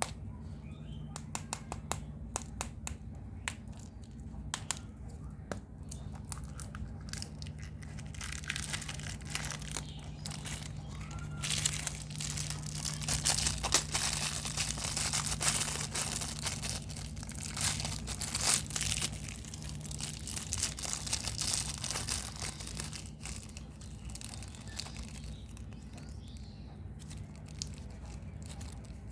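Plastic and foil candy-egg wrappers being crinkled and torn open by hand, with sharp crackles at first and a dense stretch of crinkling in the middle. A faint steady low hum sits underneath.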